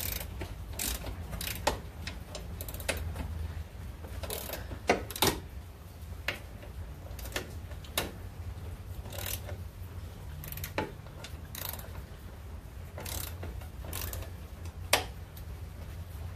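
Hand socket ratchet clicking in short, irregular strokes with metal tool clacks, as 13 mm door hinge bolts on a C5 Corvette are worked loose, a few clacks sharper than the rest.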